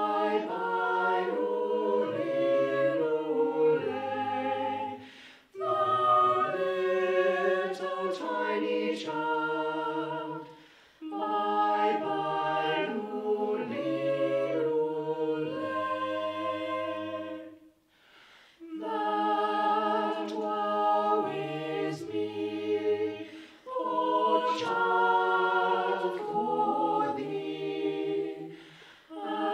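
Small chamber choir of mixed voices singing unaccompanied in several-part harmony. The singing comes in phrases of about five to six seconds, each followed by a short breath pause.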